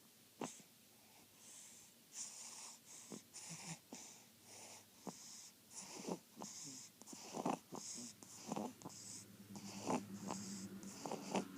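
Snoring: quick, hissing, wheezy breaths repeating about twice a second, with snuffles in between and a low rumble toward the end.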